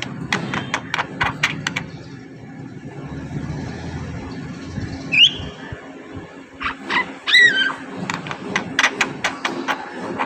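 Javan myna calling: bursts of fast clicking chatter, a short rising whistle about five seconds in, and a loud call falling in pitch about seven seconds in, followed by more rapid clicks.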